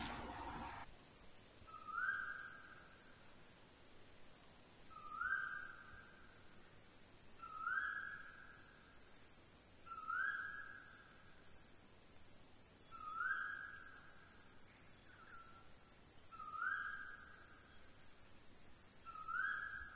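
A short whistled animal call repeated seven times, about every three seconds, over a steady high-pitched insect drone.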